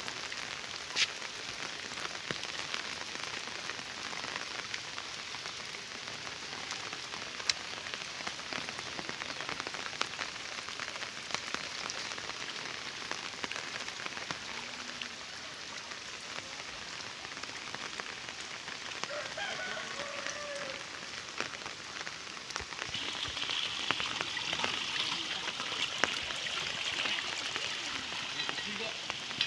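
Steady rain falling on a wet road and foliage, a continuous hiss dotted with many small drop clicks. About three quarters in, a steady high-pitched hiss joins it.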